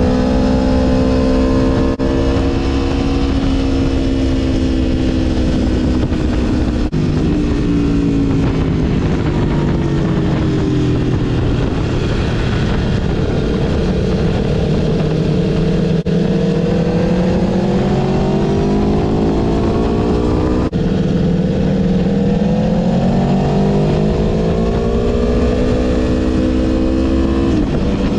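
Aprilia Tuono V4 motorcycle engine heard on board at track speed, under heavy wind noise. Its note falls as the bike slows for corners and rises again as it accelerates out, several times, with brief breaks at gear changes; it drops sharply near the end.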